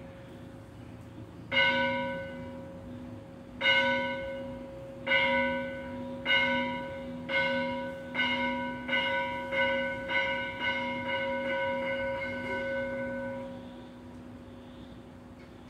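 A bell struck over and over, the strikes coming closer and closer together, each one ringing on with a steady tone into the next. The ringing then dies away a couple of seconds before the end.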